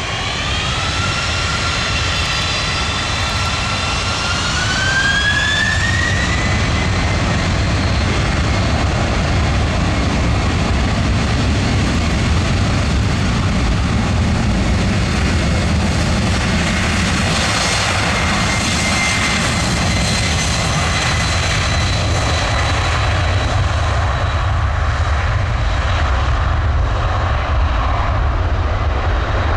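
Boeing 747-400F freighter's four jet engines spooling up for takeoff: a whine rises in pitch in two steps over the first six seconds and grows louder, then holds steady under a loud engine noise as the jet starts its takeoff roll.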